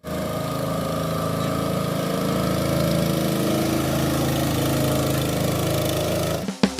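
Small engine of a perahu ketek river boat running steadily, cutting off abruptly near the end.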